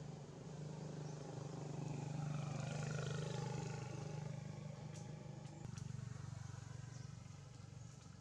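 A low, steady engine hum that swells toward the middle and then eases off, with a few faint clicks about five to six seconds in.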